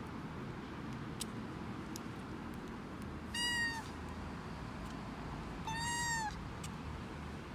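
A young kitten meowing twice, two short high-pitched calls about two and a half seconds apart, the second slightly longer.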